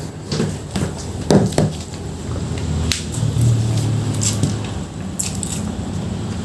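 Close-up eating sounds of someone starting on a plate of nasi padang: irregular wet smacks, clicks and crunches of chewing and of food being handled. A low steady hum runs underneath for a couple of seconds in the middle.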